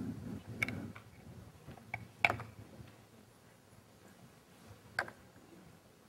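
Marker on a whiteboard: a few short, sharp taps and strokes as words are written, the loudest about two seconds in, over a soft low rumble in the first second.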